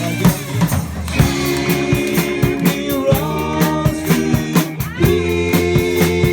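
Rock and roll band playing live: electric guitar chords and bass over a steady drum kit beat.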